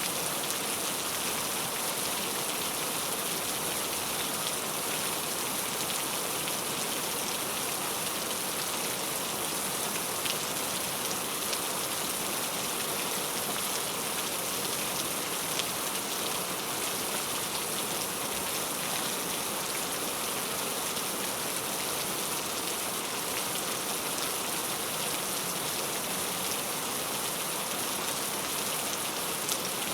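Heavy, steady rain falling, an even hiss with scattered individual drop ticks.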